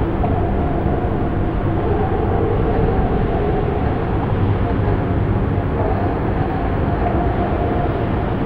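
Dark ambient drone music: a dense, steady rumbling wash of noise with low held tones underneath, like a storm or passing train.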